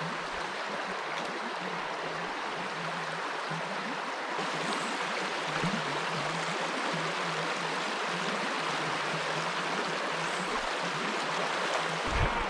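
Trout stream flowing: a steady rush of moving water, a little louder from about four seconds in.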